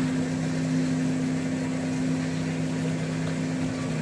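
Steady low hum of a small electric motor aboard a bass boat, two low tones together, cutting off abruptly near the end.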